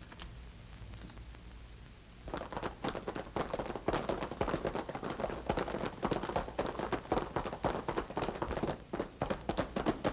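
Galloping hoofbeats, a radio-drama sound effect, starting about two seconds in as a fast, irregular clatter of knocks.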